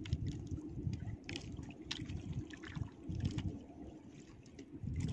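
Sea water lapping and sloshing against the hull of a small outrigger boat, an uneven wash with scattered short ticks and splashes.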